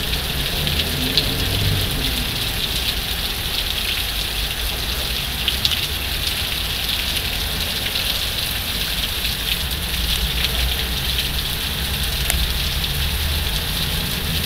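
Heavy rain falling in a steady hiss, with many small drop ticks and a low rumble underneath.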